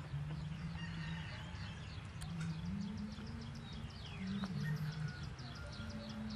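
Outdoor field ambience: a low hum that shifts up and down in pitch throughout. From about halfway in, a rapid series of high chirps comes at roughly six a second.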